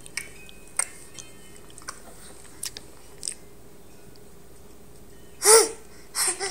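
A baby smacking her lips faintly a few times, then two short high-pitched babbling sounds, the first and loudest about five and a half seconds in, the second just before the end.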